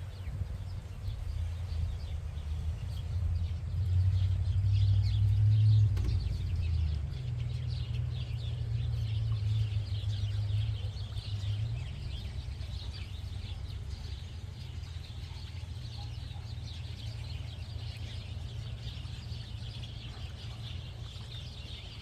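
Many wild birds chirping and calling, short calls coming one after another and growing busier partway through, over a low rumble that is strongest a few seconds in.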